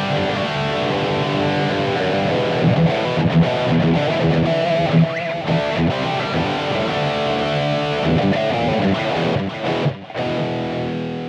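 Electric guitar music: chords and sustained notes played in a steady flow.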